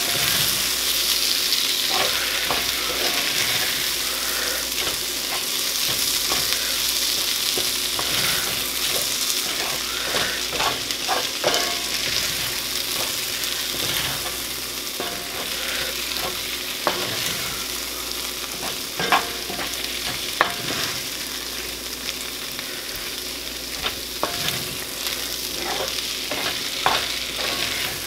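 Onions and peppers with melting cheese sizzling in a cast-iron skillet as a wooden spoon stirs and scrapes, the spoon clicking against the pan again and again, with two sharper knocks a little past halfway.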